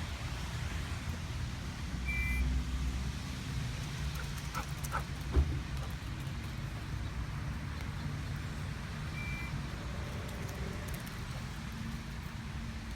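Two short high beeps, about seven seconds apart, from under the hood of a 2017 BMW 340i, over a steady low rumble. A single sharp thump comes about halfway through and is the loudest sound.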